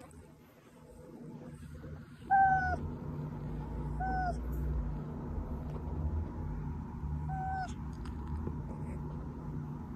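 A domestic cat meowing: three short meows about two, four and seven seconds in, the first loudest, each rising slightly in pitch and falling away.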